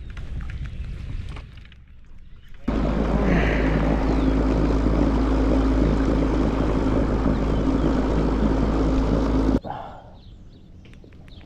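Motorized kayak's electric motor running at speed, a steady hum with wind rushing over the microphone. It cuts in abruptly about three seconds in and stops suddenly near the end.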